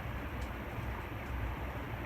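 SMC A-52 ceiling fan running, a steady rush of moving air with a low rumble from its draft on the microphone.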